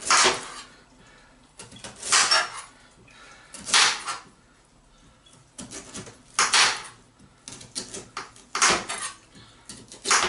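Kitchen knife cutting through raw carrots on a plastic chopping board: about five slow, separate cuts, one every two seconds or so, each a short crunch.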